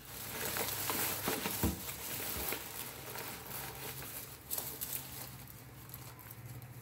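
A plastic bag with a paper bag inside rustling and crinkling as a face is pushed into it to eat the last bread crumbs. It is loudest in the first few seconds, with a few soft knocks, and dies down after about five seconds.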